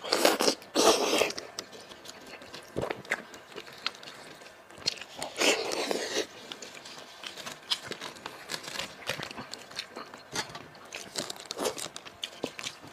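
Close-miked eating of spicy braised sheep head meat: wet chewing and biting with mouth clicks. The loudest bursts come about a second in and again around five to six seconds. Between them are softer sounds of meat being pulled apart by gloved hands.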